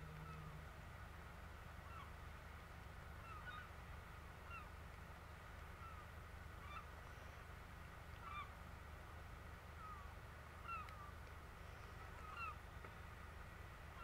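Gulls calling: short, faint, repeated calls, one every second or so, over a low steady rumble.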